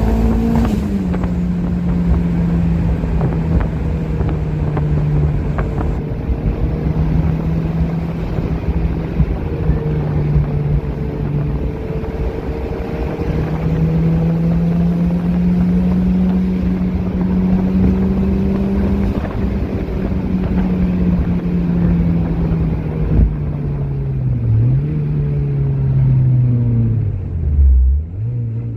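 Turbocharged Honda S2000's four-cylinder engine pulling along at fairly steady revs, the pitch rising and falling slowly. Near the end the revs drop sharply twice, as at gear changes.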